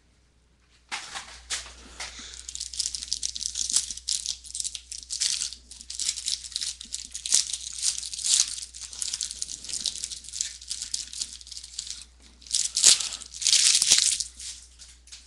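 Foil wrapper of a trading-card pack crinkling and crackling as it is handled and opened by hand, starting about a second in and going on densely, with a short pause and then two louder bursts of crinkling near the end.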